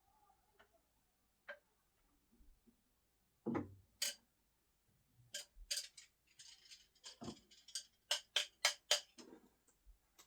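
Screwdrivers used for no-spin throwing knocking and clicking: a dull thud about three and a half seconds in, then a quick run of sharp clicks and knocks in the second half.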